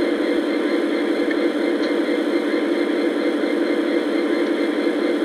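Lionel Legacy O-scale SD90MAC model diesel locomotive running along the track, its onboard sound system giving a steady diesel engine drone.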